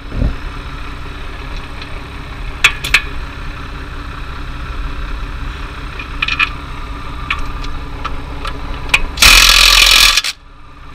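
Cordless impact wrench hammering a dual-wheel bolt on a tractor hub in one loud burst of about a second near the end. Before it come a few sharp metallic clicks of bolts and tools being handled, over a steady low hum.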